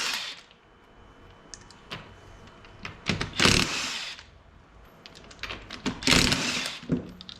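Power tool run in three separate bursts of about a second each, loosening the wheel's lug nuts, with faint clinks in between.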